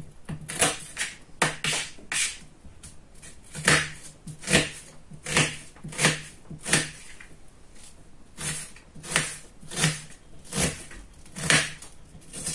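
Kitchen knife dicing an onion on a plastic cutting board: sharp chopping strokes, each with a dull knock from the board, about one or two a second with a couple of short pauses.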